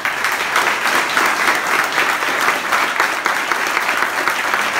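Audience applauding, steady, dense clapping from a crowded room after a presentation ends.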